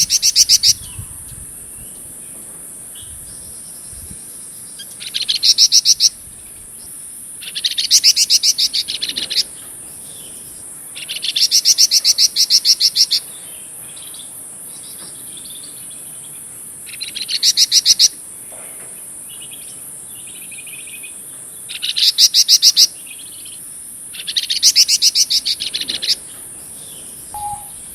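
A flamboyan songbird singing loud, rapid rattling trill phrases about every three to four seconds, each lasting one to two seconds, with softer warbling notes between them. A steady high insect buzz runs underneath.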